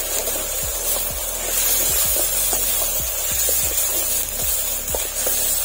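Chopped onions and green chillies sizzling in hot oil in an aluminium kadai, with a metal spoon scraping and knocking against the pan as they are stirred. Background music plays underneath.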